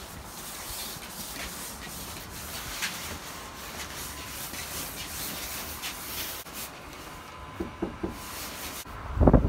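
The nylon of an inflatable T-rex costume rustling and rubbing as the wearer moves. Near the end come three quick, muffled knocks on a door, then a sudden loud low rumble.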